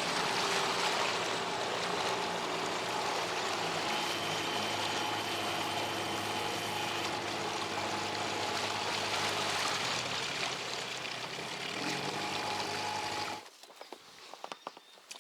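Hidea 9.9 outboard motor running steadily at low speed while the boat moves through the water, dropping off near the end and shutting off about thirteen seconds in. A few light knocks follow.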